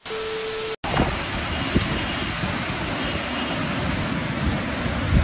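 A short burst of TV static with a steady beep tone, cutting off under a second in, then the steady rushing noise of a flash-flood torrent of muddy water pouring down a street, with wind buffeting the microphone.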